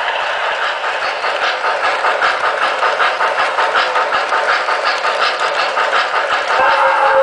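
O-gauge model steam locomotive and tender running on three-rail track, with a fast regular beat of about five a second. A steady pitched tone sets in near the end.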